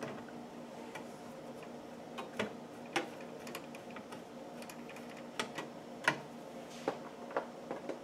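Sharp, irregular clicks and taps of a screwdriver and small screws against the metal PC case and motherboard as the motherboard screws go in, about nine in all, the loudest about six seconds in. A steady low hum runs underneath.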